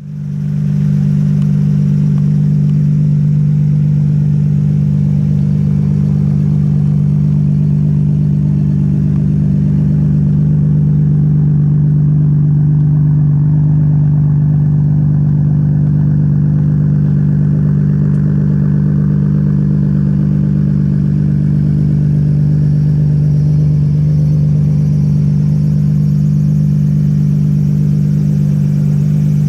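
Nissan Skyline's RB26 straight-six with an HKS turbo idling steadily at an even, unchanging pitch.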